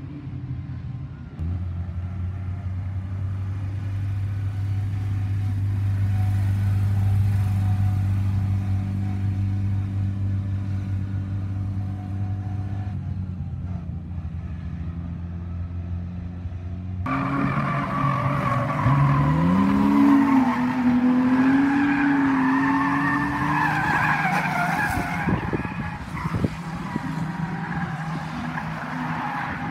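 Stock car engines idling with a steady low drone. About halfway through it cuts abruptly to a car accelerating hard, its engine revving up sharply and its tyres squealing as it slides.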